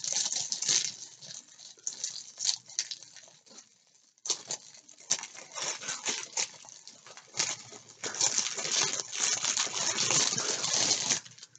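Crinkling plastic bags and the light rattle of small resin diamond-painting drills in their bags as they are rummaged through by gloved hands, with a brief pause about four seconds in.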